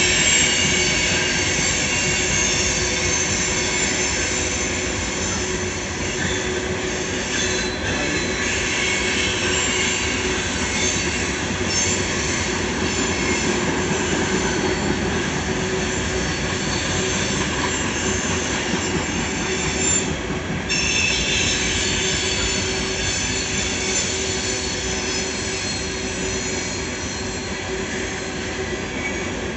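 Loaded coal train's hopper cars rolling steadily past, with a continuous rumble of wheels on rail and high-pitched wheel squeal coming and going.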